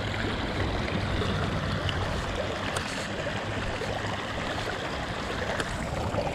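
Shallow, rocky mountain creek flowing over stones and gravel, a steady rushing trickle of water.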